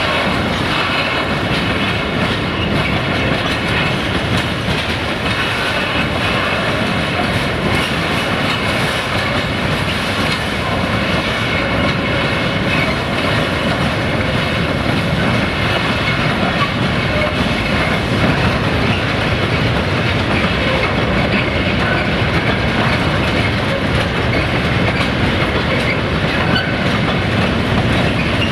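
Freight train rolling past, a steady loud rumble of wagon wheels on the rails with some clickety-clack over the joints.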